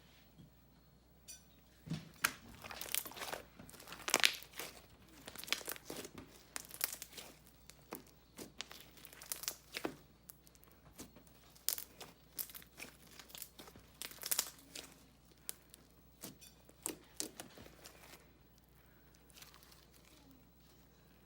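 Handmade slime being squished and stretched by hand, giving a run of sharp wet pops and crackles, several a second, starting about two seconds in and dying away a few seconds before the end.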